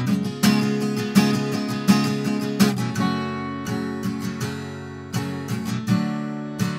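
Steel-string acoustic guitar strummed in a steady rhythm, chords ringing between strokes, about three strums every two seconds. The strumming turns lighter for a couple of seconds in the middle, then picks up again.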